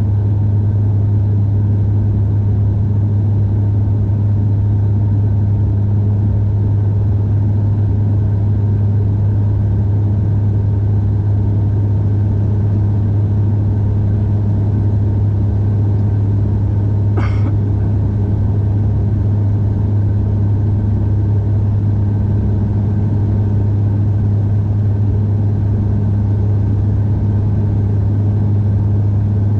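Steady engine and air noise inside an airliner cabin during an approach to land, with a strong constant low hum and a fainter tone above it. A faint brief tick about 17 seconds in.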